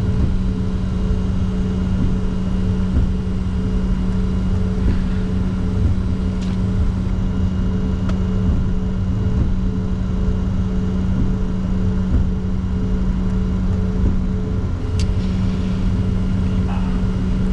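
Cockpit noise of a Bombardier Challenger 604 taxiing at idle: a steady hum over a low, uneven rumble, with a couple of faint ticks.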